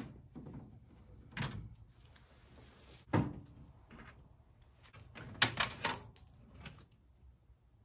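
A few short knocks and clicks, then a quick cluster of them about five to six seconds in, from a truck's interior door panel being unscrewed and pulled off the door.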